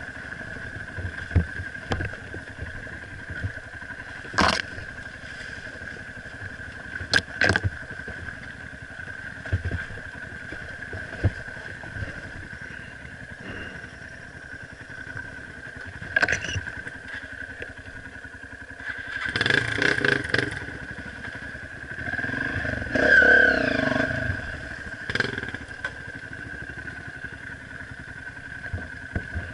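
Red Honda trail bike's engine running at low speed on rough singletrack. It is revved harder twice about two-thirds of the way through, the second time climbing in pitch. Several sharp knocks are heard as the bike jolts over the trail.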